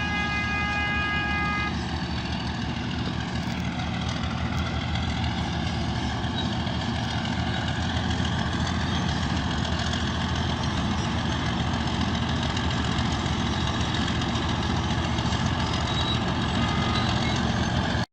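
Heavy diesel engine of earthmoving machinery running steadily, with whines that slide up and down in pitch. A high steady whine sounds for the first couple of seconds and then stops.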